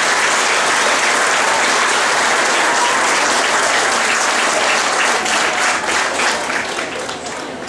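A crowd applauding, many hands clapping at once, loud and steady, then tapering off near the end.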